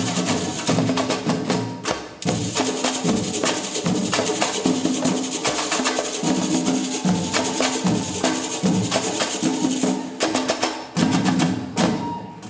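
Live samba percussion: two hand drums playing a fast, busy rhythm with small hand percussion clattering on top, breaking off briefly about two seconds in and again near the end.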